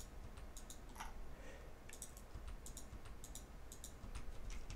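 Computer mouse clicking: a run of faint, quick clicks at an uneven pace, over a low steady hum.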